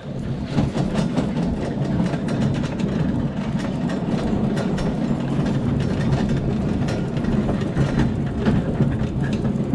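Engine of a farm motor tricycle running steadily as it drives along, with a constant clattering rattle from the vehicle's body.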